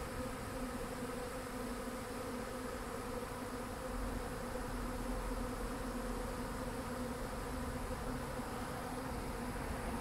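Honey bee swarm buzzing around a bait hive as the colony settles in: a steady, dense hum of many bees at one even pitch.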